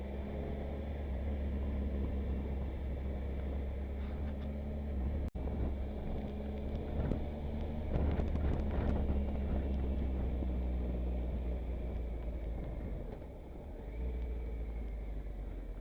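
Motorcycle engine running at a steady speed while riding, with wind noise on the microphone. A cluster of light clicks around the middle, and the sound drops out for an instant about five seconds in.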